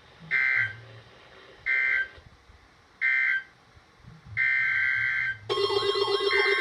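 EAS SAME digital data bursts, a harsh two-tone buzz: three short end-of-message bursts about a second and a half apart closing the flood watch, then a longer burst of the next alert's header. About five seconds in, a loud warbling electronic alert tone starts and keeps going.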